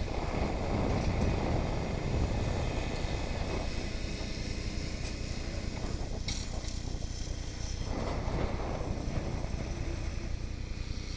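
Steady low rumble of a fire truck's engine running during aerial-ladder operations, with wind buffeting the microphone in swells near the start and again later.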